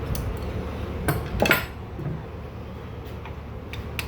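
Steel transaxle parts of a garden tractor rear end clinking and knocking against each other as they are handled and fitted, a few light clicks with a louder clatter about a second and a half in.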